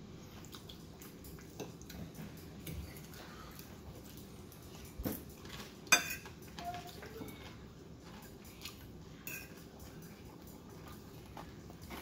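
Metal fork clinking and scraping on a ceramic plate while picking up food, in scattered short clicks, with one sharper, louder clink about six seconds in.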